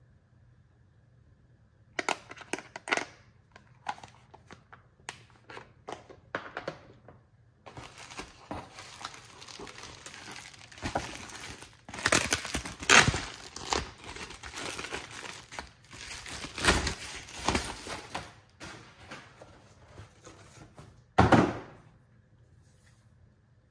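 Foil-faced bubble-wrap packaging crinkling and rustling as it is peeled off a shotgun, in waves with a loud burst near the end. Before it comes a series of sharp clicks and taps from a small plastic parts case being handled.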